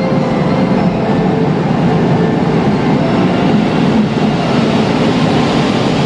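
KiHa 85 series diesel multiple unit pulling slowly into a station platform: the steady sound of its Cummins diesel engines and rolling wheels as the cars pass close by.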